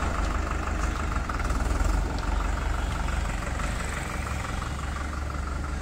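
Farmtrac 6055 tractor's diesel engine running steadily at low revs, a low hum with a fast, even rhythm over it.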